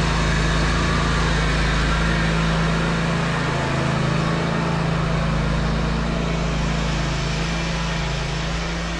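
Zero-turn riding mower engine running steadily at a constant speed just after being started, with a steady low hum.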